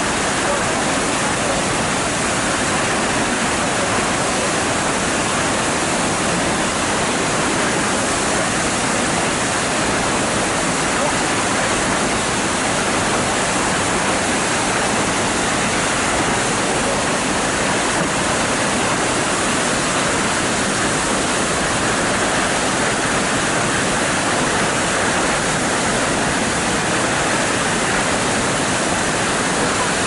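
Waterfall plunging into a pool: a loud, steady rush of falling water.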